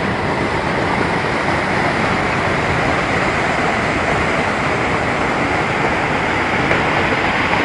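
Canal floodwater rushing and churning as it pours out of a concrete culvert under a bridge into a lake: a loud, steady rush of white water.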